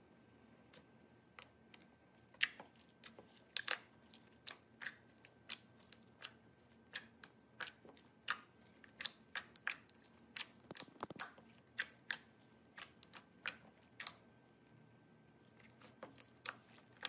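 Sticky slime being pressed, peeled off a smooth surface and folded by hand, giving irregular sharp clicks and pops, about one or two a second.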